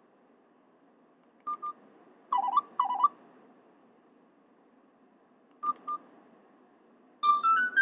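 Nokia 216 mobile phone giving short electronic key beeps from its speaker: a pair of brief beeps about a second and a half in, a louder, lower pair near three seconds, and another brief pair near six seconds. Just before the end, the phone starts playing the next Nokia 6500 Slide ringtone.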